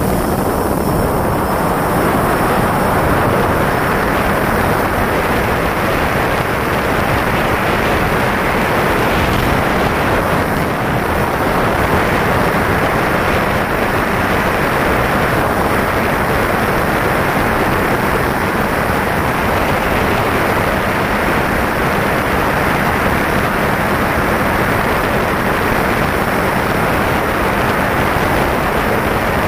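Steady rush of air and propeller noise heard through the onboard camera of an RC FPV plane cruising in flight.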